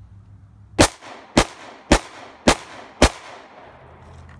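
Glock 19 Gen 4 9mm pistol fired five times in steady succession, about two shots a second.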